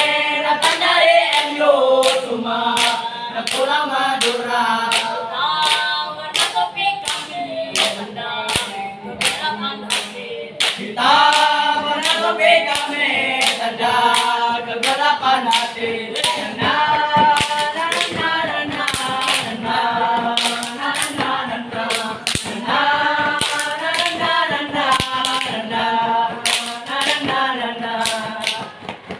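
A group of young voices singing and chanting in unison, without instruments, over sharp step-dance stomps and claps that keep a steady beat of about two a second.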